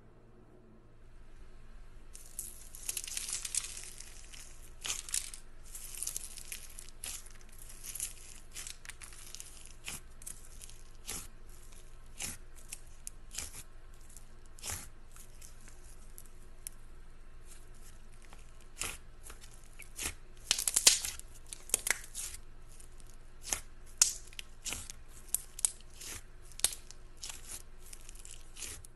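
Fingers pressing and poking into a tub of white slime, making crackly pops and tearing sounds: a fast, uneven run of sharp little clicks that starts about two seconds in, densest near the start and again about twenty seconds in.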